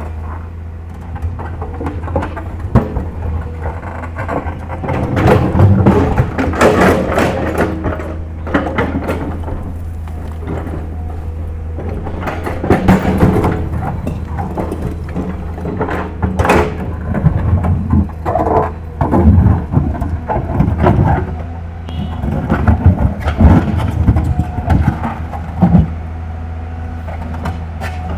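L&T PC200 crawler excavator's diesel engine running steadily under load, with irregular scraping and knocking of the bucket against rock that comes and goes from about five seconds in.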